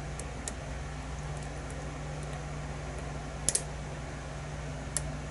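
Small metallic clicks of a hook pick working the pins of a pin-tumbler challenge lock under tension: a quick pair of clicks about three and a half seconds in and a single click near the end, with fainter ticks between. A steady low hum runs underneath.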